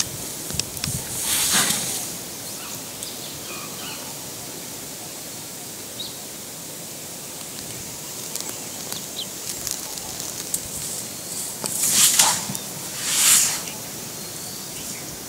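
Outdoor ambience with a steady high hiss, broken by three short swishing rustles of grass and leaves: one about a second and a half in, then two close together near the end, which are the loudest.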